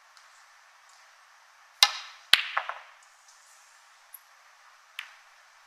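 A snooker shot: a sharp click of the cue tip on the cue ball, then about half a second later a louder click of the cue ball striking an object ball, followed by a few lighter ball clicks. One more single ball click comes near the end.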